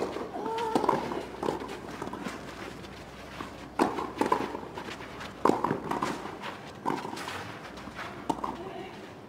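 Tennis ball struck by rackets in a doubles rally on a clay court: a sharp pop on the serve, then single hits at uneven intervals about every second or so.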